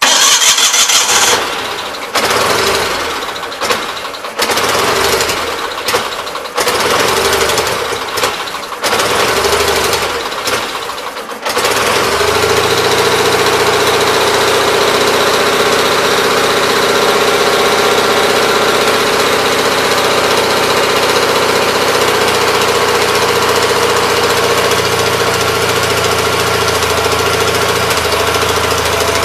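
Gravely 817 walk-behind tractor engine starting through its newly installed muffler: it surges and stumbles unevenly for about ten seconds, then settles into a steady run.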